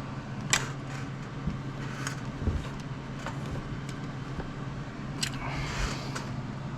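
A few light clicks and a short scrape of small metal and plastic parts being handled, as a generator and its mounting plate are pushed into a tight model-helicopter frame, over a steady low hum.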